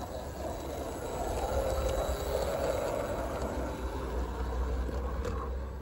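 Garden-scale model diesel locomotive running along the track with a steady mechanical hum that swells about a second in and eases near the end. A single click comes near the end.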